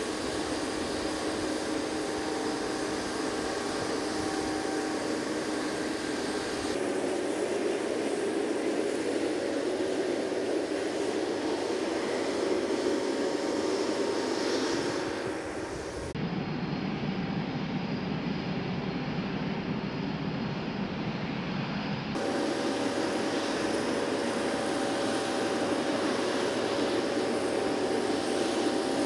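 Steady jet-engine noise: a constant rumble with a steady hum, its tone changing abruptly three times as the recording switches between takes.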